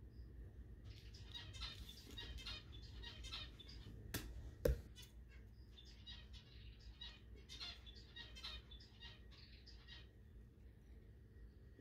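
Faint crinkly rustling and snipping as stiff artificial glittered grass stems are handled and cut with small craft scissors, with two sharp knocks just after four seconds in, the second the louder.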